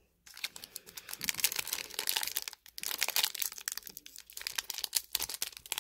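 Foil wrapper of a Pokémon Champion's Path booster pack crinkling and crackling in the hands as they work at tearing it open, in irregular crackles with a couple of brief pauses; the pack is resisting being opened.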